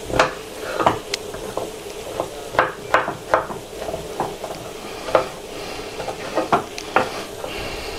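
Kitchen knife cutting champignon mushrooms on a cutting board: irregular taps of the blade on the board, roughly one or two a second, over a steady sizzle of onion frying in a pan.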